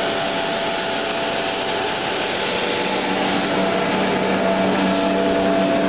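Soil vapor extraction blower running steadily with a strong rush of air, pulling against a wooden board held over its inlet pipe to simulate vacuum. A hum rises out of the air noise from about three and a half seconds in.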